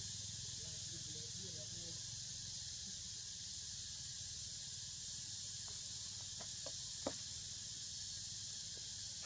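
Steady high insect drone of a tropical forest, even throughout, with a few soft clicks about six to seven seconds in, the sharpest near the seventh second.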